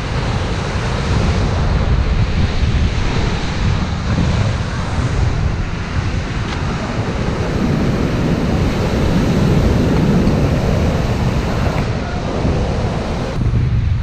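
Heavy surf breaking, with foaming water washing over a paved seafront. Strong wind buffets the microphone, adding a deep rumble under the sea noise.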